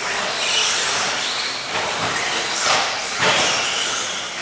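Radio-controlled stadium trucks racing on the track: a steady hiss that swells and fades several times as trucks pass.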